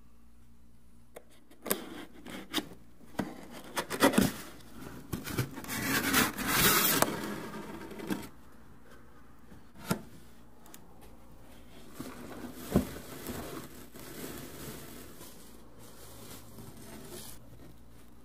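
Cardboard packaging being opened and handled: the box and its flaps rub and scrape, with sharp taps and knocks. The loudest part is a long scraping slide about six seconds in, then a couple of single knocks and lighter rustling as the product is lifted from its cardboard insert.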